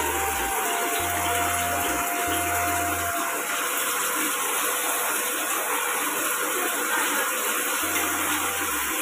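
Snails in their shells frying in hot oil in a wok on an induction cooktop: a steady sizzle, with a thin steady tone that stops about three and a half seconds in.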